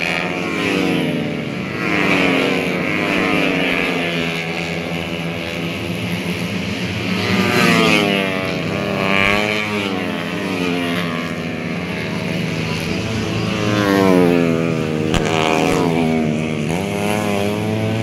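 Several tuned four-stroke 130cc racing motorcycles running hard past the trackside, their engines rising and falling in pitch as they rev, shift and ease off for the corner, with more than one bike heard at once.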